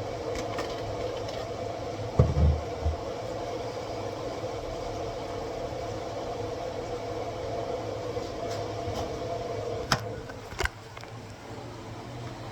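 Steady mechanical hum of a fan or kitchen appliance, with a low thump about two seconds in. Two sharp clicks come near the end, after which the hum gets quieter.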